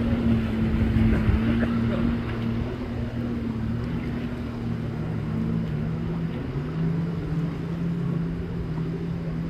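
Jet ski engine running out on the water, a steady drone that drops in pitch about two thirds of the way through as the craft eases off, over a wash of wind and water noise.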